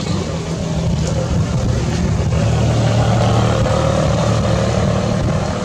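Engine of a road vehicle running close by, a steady low hum that grows louder towards the middle and then eases off slightly, as when a vehicle rolls slowly past.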